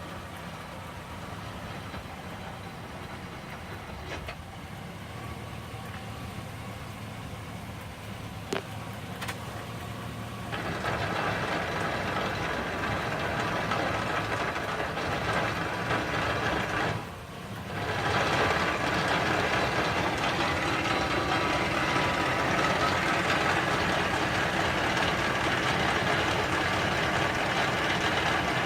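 2001 Chevrolet Silverado 1500's 5.3L V8 idling, then about ten seconds in a loud, harsh grinding noise starts, drops out briefly past the halfway mark and comes back. The grinding comes from inside the drivetrain toward the end of the transmission output shaft, with the driveshaft looking fine, and is louder in reverse.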